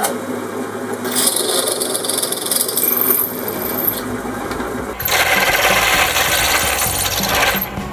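Pillar drill running, a twist drill boring into an aluminium arbor held in a machine vice, with a steady cutting noise. The sound changes suddenly about a second in, and again around four and five seconds in.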